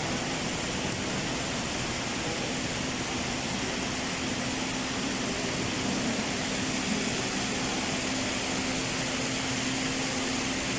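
Steady hiss of electric fans running, with a faint low hum.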